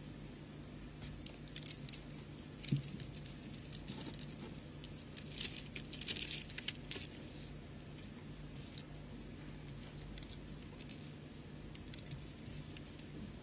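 Small beads clicking and rattling as they are picked up and threaded onto beading line: scattered light clicks, the loudest about three seconds in, with a short cluster of rattling about five to seven seconds in.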